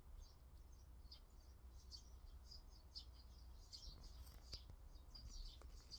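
Faint chirping of small birds: many short, high chirps, several a second, over a low steady hum.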